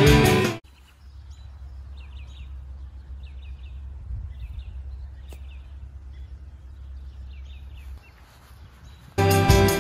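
Songbirds chirping in short repeated phrases over a low steady rumble, with one sharp tick about five seconds in. Rock guitar music cuts off within the first second and comes back near the end.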